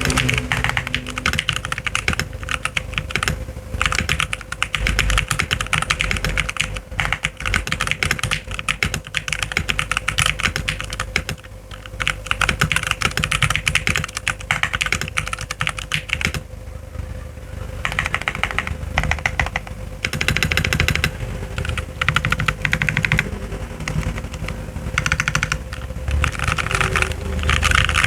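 Typing on a modded Rexus Legionare MX10 mechanical keyboard: lubed Outemu Brown switches under Tecware Pudding PBT keycaps, with PE foam in the case. Rapid keystrokes come in bursts, with short lulls about 11 and 16 seconds in.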